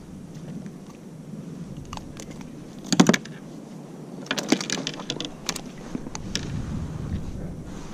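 Small clicks and knocks from handling a caught cod and unhooking a soft-plastic lure from its mouth on a plastic kayak. One louder knock comes about three seconds in, and a quick run of clicks follows a second or two later.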